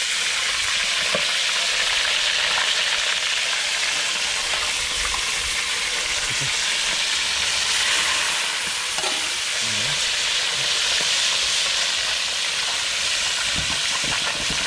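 Whole fish deep-frying in hot oil in a wok: a steady, dense sizzle.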